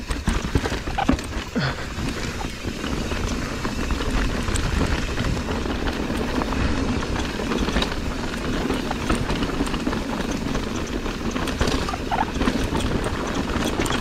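Mountain bike riding down rocky singletrack: tyres crunching over stones with a steady run of knocks and rattles from the bike, over a low rumble.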